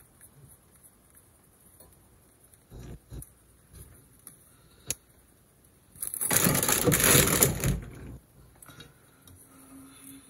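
Vegetable oil being poured into a heated stainless steel pan: a loud, rough rush of noise lasting about two seconds, starting about six seconds in, after a few faint knocks.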